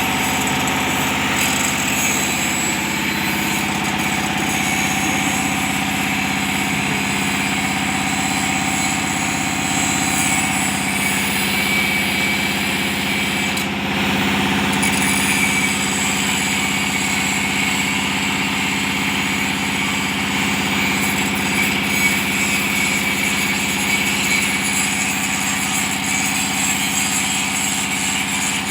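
An engine running steadily at idle, an even drone that does not change.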